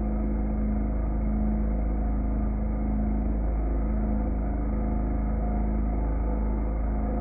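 CNC router spindle milling a wooden cylinder turned on a 4th-axis rotary, heard slowed down as a deep, steady drone with a low hum.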